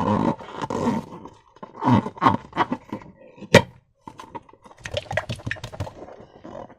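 Slime being squished and worked by hand: irregular wet, sticky squelches in clusters, with one sharp snap about three and a half seconds in.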